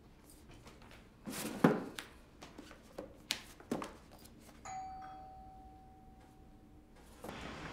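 A few knocks and thumps, the loudest about a second and a half in. Then a single bell-like chime sounds once and fades over about two seconds.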